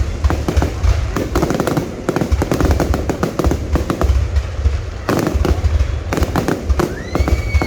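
Fireworks going off: dense, irregular crackling and popping from many bursts over a constant low rumble, with a high whistle rising and then falling near the end.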